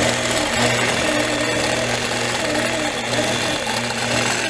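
Longarm quilting machine running and stitching steadily at an even pitch, its needle sewing a wavy line along an acrylic wave ruler.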